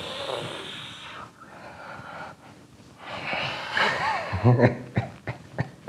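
A man's breathy exhales with a few short hummed or voiced sounds, the clearest about four and a half seconds in.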